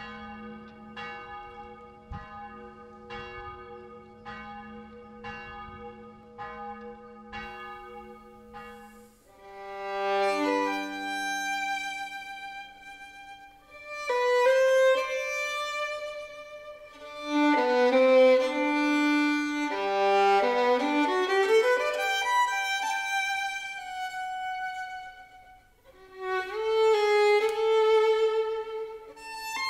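A church bell tolling, a little over one stroke a second, with a low hum carrying on between strokes. It stops about nine seconds in, and a solo violin takes over, playing a slow improvisation on a hymn tune with long held notes in a reverberant church.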